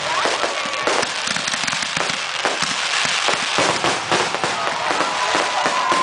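Fireworks and firecrackers popping and banging in a dense, rapid string, with a steady whistling tone in the second half.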